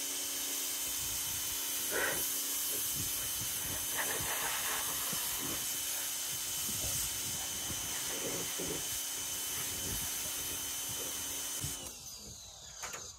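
FOTING electric pressure washer running: a steady motor hum under the hiss of the water jet spraying onto a car body. About twelve seconds in it cuts off abruptly as the trigger is released, the motor stopping on its own.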